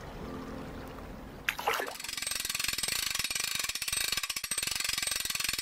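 A low rushing noise, then a falling whoosh about one and a half seconds in, followed by a rapid, continuous ratcheting of a fly reel's click-and-pawl drag as line is pulled off it.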